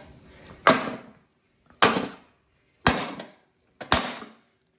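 Hammer blows on the crankshaft of a Honda GCP160 mower engine, driving it out of the block: four sharp, loud strikes about a second apart, each ringing briefly. The crankshaft is seized, which the owner believes happened at its bearing.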